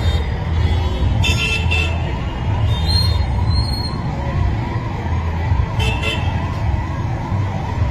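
A siren yelping, its pitch rising and falling quickly, about three times a second, over a loud steady low rumble.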